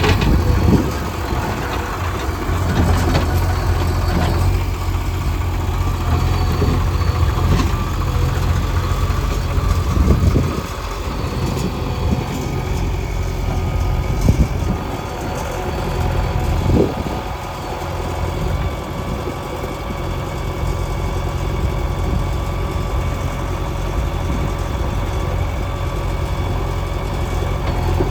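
Diesel engine of a JCB 3DX backhoe loader running at work, its revs rising and falling, with a few sharp knocks along the way.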